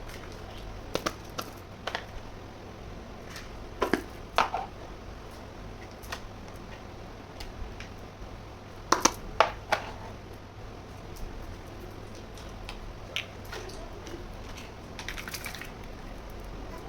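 Light clicks and taps of small plastic toy kitchen pieces being handled and set down, in scattered clusters of two or three, over a steady low hum.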